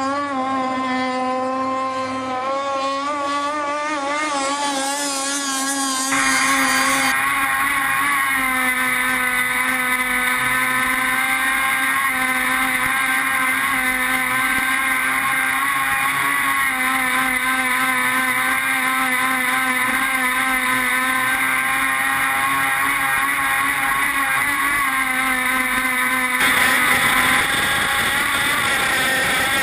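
Small two-stroke gas outboard engine of a radio-controlled F1 race boat running at high revs. For the first few seconds its pitch wavers up and down, then it holds a steady, close-up drone with water rushing past the hull.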